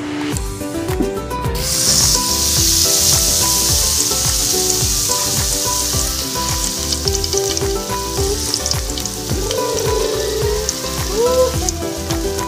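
Batter-coated sweet potato leaves sizzling and frying in hot oil, the sizzle starting suddenly about one and a half seconds in and then holding steady. Background music plays underneath.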